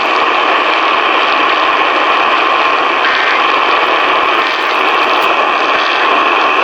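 Steady hiss and static from an AM radio receiver, with no program audio coming through.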